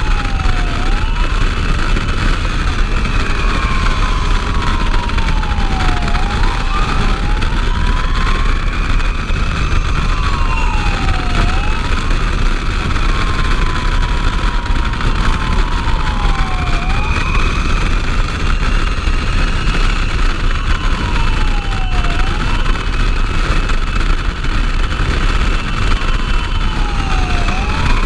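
Fire engine's siren wailing in slow cycles about five seconds apart, each cycle rising quickly and then falling slowly. Underneath is a heavy rumble of wind and engine noise on the truck-mounted microphone.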